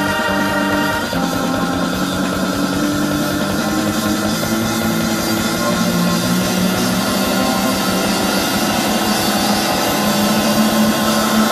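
Prog rock from a 1970 vinyl LP playing on a turntable: full band with held notes that change about a second in.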